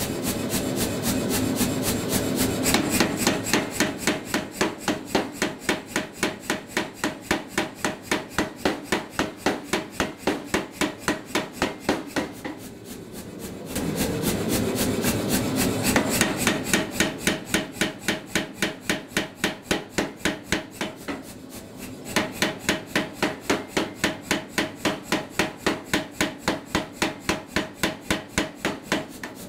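Say-Mak SPH 60 self-contained air power hammer, 60 kg, striking a glowing billet of S7 tool steel in fast, even blows. The blows ease off briefly twice, about 12 and 21 seconds in.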